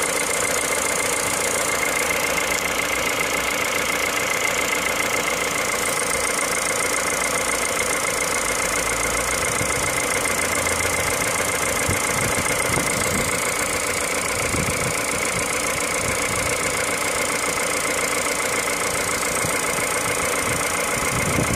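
An engine running steadily, with a constant high whine over it.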